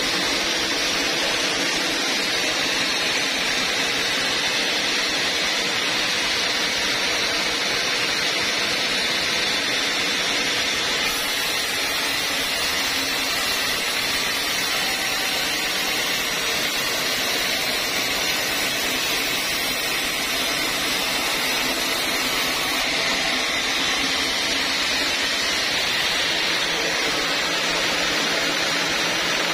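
Horizontal band sawmill running steadily, its blade cutting lengthwise through an old teak beam: a continuous loud whirring hiss with no pauses.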